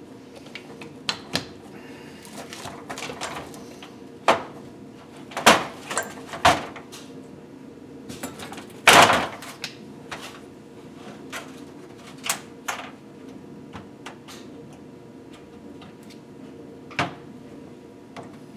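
Scattered clicks and knocks of metal tools and engine parts being handled during piston and ring work, the loudest about halfway through, over a steady low hum.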